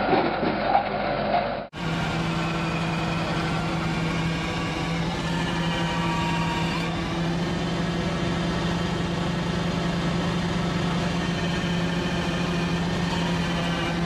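Cherry harvester running steadily: an even engine drone with a constant low hum. It comes in after an abrupt cut about two seconds in, which ends a different machine sound from a carrot harvester.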